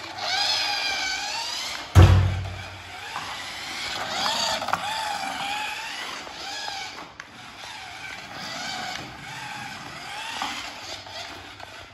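Electronic race-car sound effects: synthetic engine revs and tyre squeals that glide up and down in pitch again and again. A short low thump comes about two seconds in.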